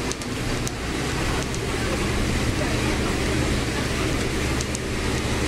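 City bus (Mascarello Gran Via) heard from inside the cabin near the front while driving: a steady engine hum with road and body noise, and a few short rattles.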